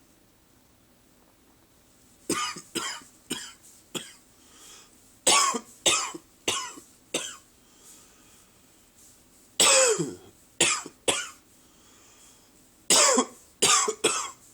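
A man's morning cough: four bouts of three or four sharp coughs each, with short pauses between them. One cough about two-thirds of the way through is longer and falls in pitch.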